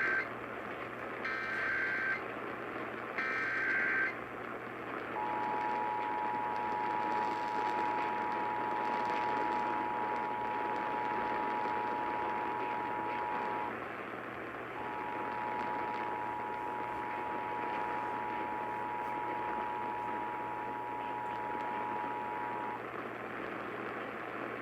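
Emergency Alert System tones received over the radio: three short screeching bursts of the SAME digital header about two seconds apart, then the two-tone EAS attention signal held for about eight seconds, breaking off briefly and sounding again for about eight more. Steady radio hiss runs underneath.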